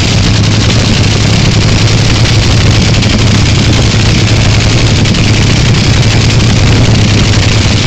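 Top Fuel dragster's supercharged nitromethane V8 running at a steady idle, very loud, with a deep even rumble and a harsh crackle over it.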